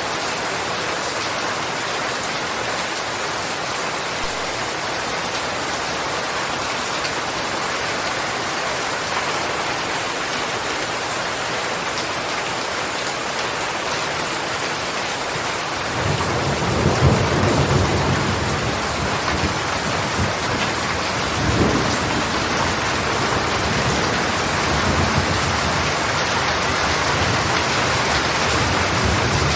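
Steady rain falling with an even hiss. About halfway through, thunder starts rumbling low underneath, swelling louder twice before settling into a continuing rumble.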